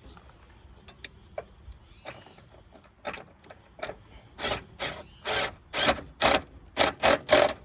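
Socket ratchet worked in short back-and-forth strokes, about two a second and getting louder toward the end, snugging a bolt of the AC line bracket on a Prius engine, after a few light clicks of the parts being set in place.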